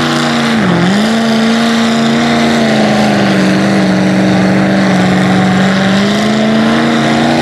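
Lifted 4x4 truck's engine held at high revs as it churns through a deep mud pit. The pitch dips sharply and recovers about a second in, then holds nearly steady.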